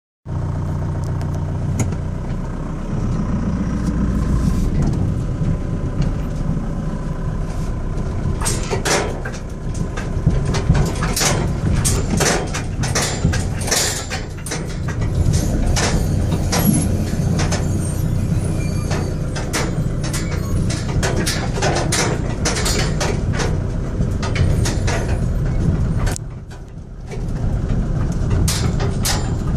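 Car engine running steadily at low speed, heard from inside the cabin, with frequent knocks, clunks and rattles as the car crawls over a potholed, broken road surface.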